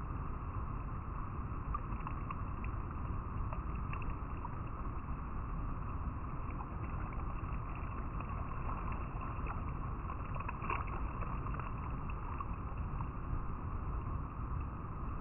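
River water running over rocks: a steady rush with small splashes and trickles scattered through it.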